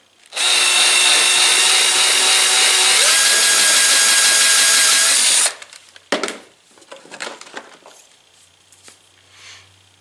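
Cordless drill spinning the crank of a Vevor benchtop wire stripper, pulling a piece of soft-sheathed lamp cord through the cutter blade. It runs steadily for about five seconds, its pitch stepping up about halfway, then cuts off suddenly, followed by a few light clicks as the drill is set down and the wire handled.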